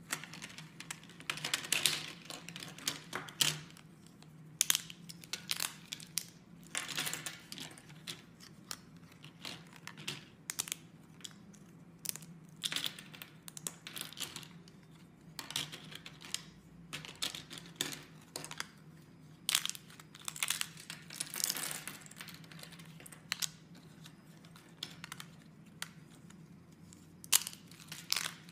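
Thin, dried slices of bar soap snapped and crushed by hand, giving irregular crisp cracks and crumbling crackles that come in clusters.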